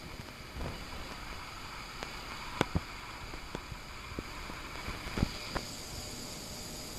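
Steady hiss with a scattering of sharp clicks and knocks, the loudest a quick pair about two and a half seconds in and another a little past five seconds.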